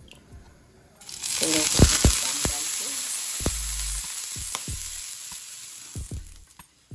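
Water on a hot flat dosa tawa flashing into steam: a sudden loud sizzling hiss about a second in that slowly dies away, with a few soft knocks. The sizzle shows the griddle is very hot.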